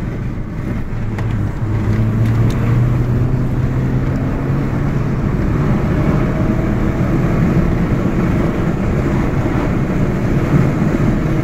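Remapped Mini Cooper S engine heard from inside the cabin while driving, a steady drone with road noise, its pitch rising a little about halfway through as the car picks up speed.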